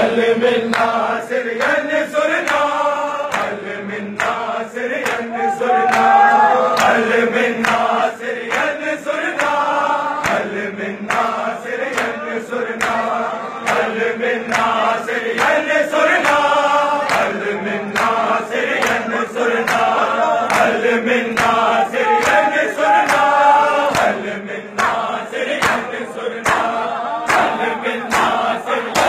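Crowd of men chanting a Shia noha in unison. Sharp, regular slaps of hands beating on bare chests (matam) keep a steady beat under the singing.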